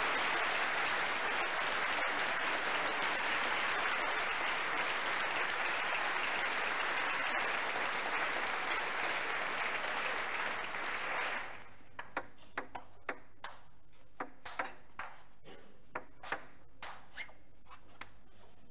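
Audience applauding for about eleven seconds, then stopping. A table tennis rally follows, with the celluloid ball clicking off bats and table about twice a second.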